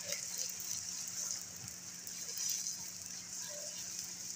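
Beaten eggs sizzling in hot oil in a nonstick frying pan as a spatula stirs them: a steady high hiss.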